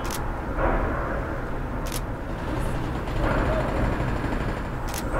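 Street traffic ambience: a steady low rumble with cars swelling past twice, and three or four sharp single clicks of a DSLR shutter spaced a second or more apart.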